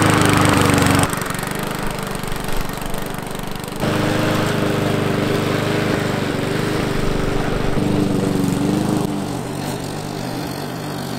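Walk-behind lawn mower's petrol engine running at a steady speed, in several joined clips, so the sound changes abruptly about a second in, near four seconds and around nine seconds.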